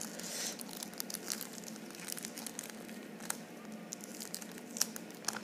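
Thin clear plastic wrapping crinkling and tearing as it is peeled by hand off a new puzzle cube: a run of small crackles and clicks.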